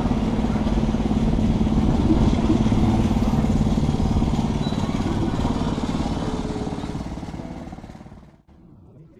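A motor vehicle engine running steadily, then fading away over the last couple of seconds before the sound cuts off abruptly near the end.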